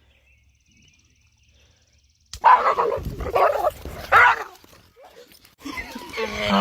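A dog barking, a few loud barks that begin about two seconds in after near silence. A long pitched sound starts near the end.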